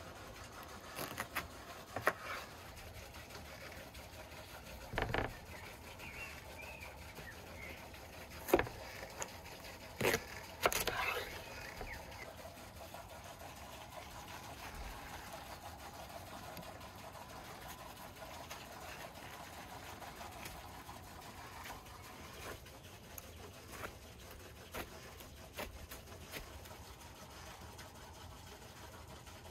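Knife cutting through a whole watermelon on a wooden cutting board: a handful of crisp chops and knocks of the blade and melon against the board in the first twelve seconds, one of them a heavier thump, then only small faint taps as the red flesh is sliced into wedges.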